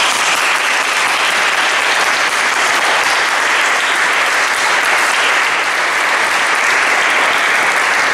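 Audience applauding steadily, a sustained round of clapping at the close of a lecture.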